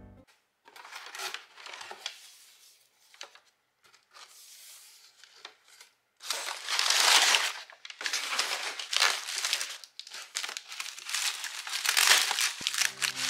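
Crumpled kraft packing paper rustling and crinkling as it is handled in a cardboard box, in irregular bursts, loudest a few seconds in. After that, bubble wrap around new plates crinkles as it is handled.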